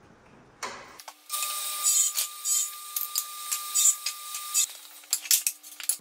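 Portable table saw running and cutting plywood, a steady whine with repeated surges as the blade goes through the pieces, stopping about four and a half seconds in. Then a clatter of plywood boards being handled and stacked.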